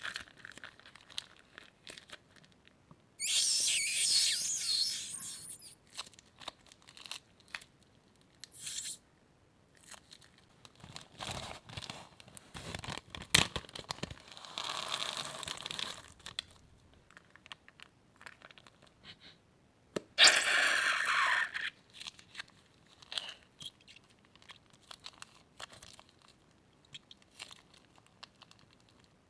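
Crunchy slime with plastic bags being handled and squeezed, crinkling and crackling: two longer bursts of crinkling, with scattered crackles and pops between them.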